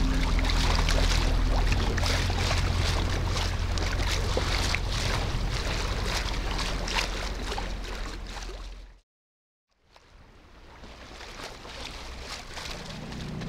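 Water rushing and splashing along a sailboat's hull close to the waterline as the boat moves through choppy water. About nine seconds in the sound cuts out briefly, then comes back quieter as a softer wash of water and wind that slowly grows.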